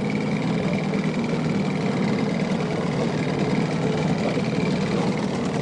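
Fishing boat's engine running steadily at low speed, a constant even hum.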